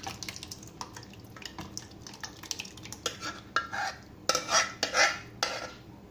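A metal spoon scraping and clinking against a steel vessel as thick boiled dal is pushed out of it into a wok. A run of small clicks and scrapes turns into louder clattering strokes past the middle.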